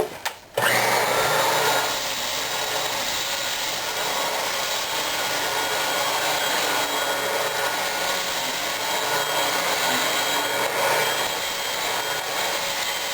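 Hoover Flair vacuum cleaner switched on about half a second in, its motor running steadily with a faint whine as it sucks cat litter up off carpet.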